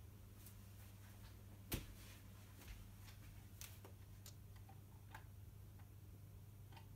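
Near silence with a steady low hum and a few faint scattered clicks, one sharper click about two seconds in.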